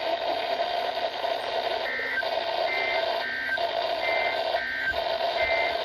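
Weather-radio static carrying the SAME end-of-message data tones: six short beeping digital bursts, from about two seconds in, in two interleaved sets of three. These bursts are the coded signal that closes the warning broadcast.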